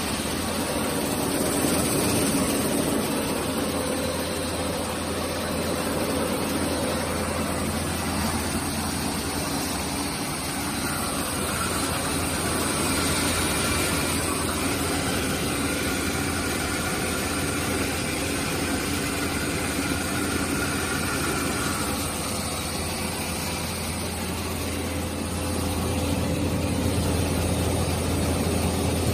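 Rice milling machine running steadily: a constant low hum with an even rushing noise over it.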